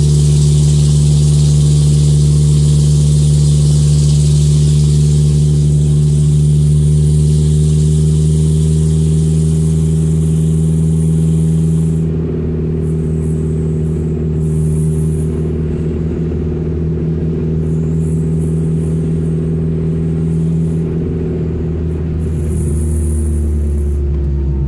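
Turbocharged 1997 Audi A4 engine and exhaust droning from inside the cabin while driving. The exhaust runs through a 2.5-inch dump pipe with no catalytic converter and a broken flex joint, which makes it way too loud. The deep drone is steady for the first half, then a little quieter and less even from about halfway through.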